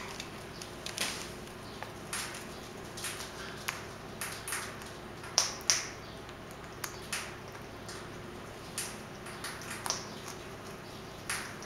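Parrots (a female eclectus and an amazon) picking at a millet spray: irregular small clicks and cracks of beaks on the seeds, with two louder, sharper ones about halfway through.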